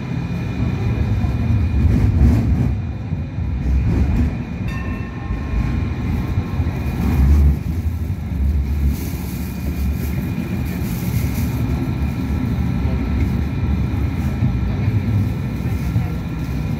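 Hong Kong Light Rail first-generation (Phase I) car 1043 at its terminus: a continuous low rumble with steady high-pitched electrical whine tones from the car's equipment, swelling louder a couple of times.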